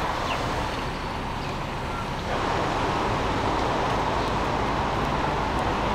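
Outdoor road traffic noise: a steady hum of passing cars, which jumps abruptly to a louder, fuller street traffic sound about two seconds in.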